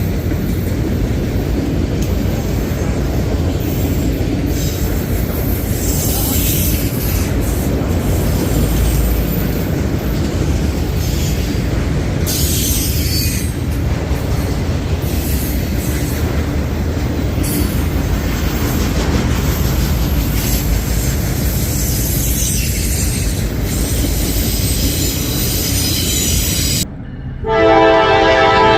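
Train passing close by: steady rumble of wheels on rail with intermittent high wheel squeal. Near the end the sound cuts sharply to a locomotive's multi-chime air horn sounding a held chord.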